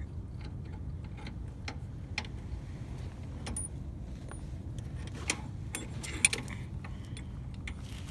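Scattered light metallic clicks and clinks from things being handled, with a few short high rings. The loudest come about five and six seconds in, over a low steady rumble.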